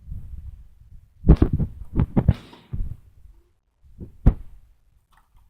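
Dull thumps and knocks with a low rumble, handling noise close to the microphone: a cluster of knocks about a second in, then two sharper knocks about four seconds in.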